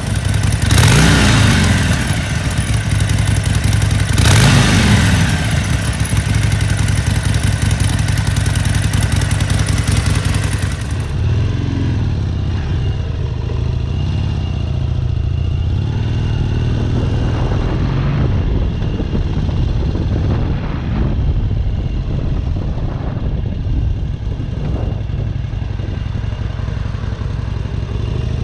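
Harley-Davidson Sportster Seventy-Two's 1200 cc air-cooled V-twin blipped twice while standing. It then runs at low revs with a few gentle throttle swells.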